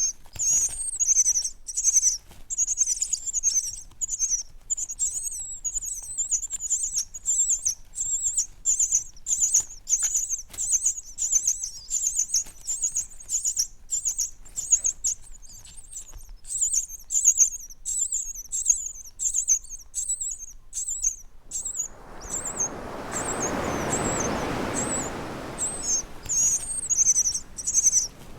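A flock of small birds chirping in rapid, high-pitched chatter. About 22 seconds in, the chirping thins while a sea wave washes in with a rushing swell and fades over a few seconds, then the chirping picks up again.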